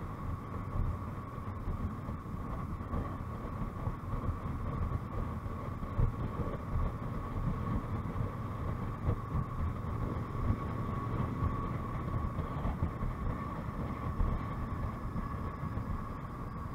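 Motorcycle cruising at a steady speed, heard from its onboard camera: the engine's even drone mixed with wind and road noise, with a constant thin whine above it.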